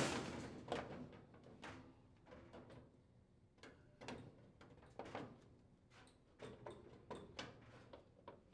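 Front half of a dryer blower housing being fitted back into place: a knock right at the start, then scattered faint clicks and taps as the parts are handled.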